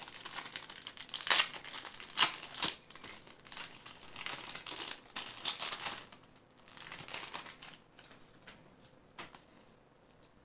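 Plastic packaging crinkling and crackling as it is handled and opened by hand to take out a rubber keychain. There are a few sharp crackles in the first few seconds, then softer rustling that dies away near the end.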